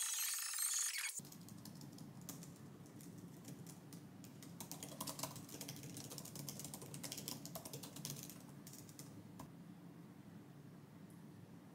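Typing on a laptop keyboard: a run of light key clicks that thins out about eight seconds in. Background music cuts off about a second in.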